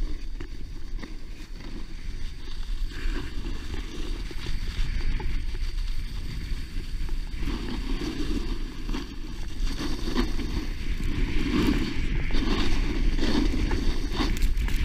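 Wind buffeting the microphone while a snowboard slides and scrapes over packed snow on a downhill run. It grows louder and hissier in the last few seconds.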